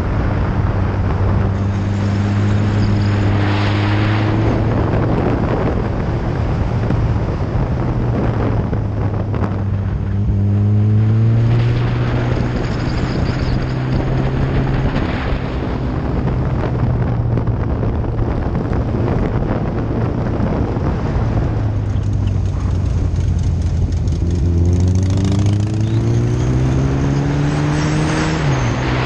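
Kawasaki ZX-14R's inline-four engine running at riding speed with wind rushing over the microphone. The engine pitch climbs under acceleration about a third of the way in and again near the end, then drops sharply at the very end.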